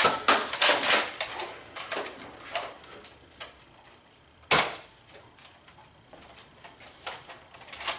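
Nerf foam-dart blasters clacking and snapping as they are fired and primed, with darts striking. A fast run of clacks comes in the first three seconds, then sparser ones, with one sharp snap about halfway through.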